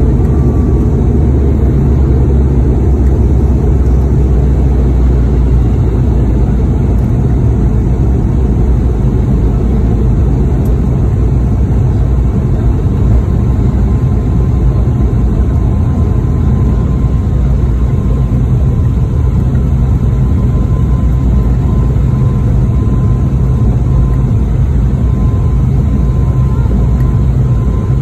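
Cabin noise inside a high-wing turboprop airliner rolling down the runway after touchdown: a steady, loud low engine drone and rumble. A faint steady whine grows clearer through the second half.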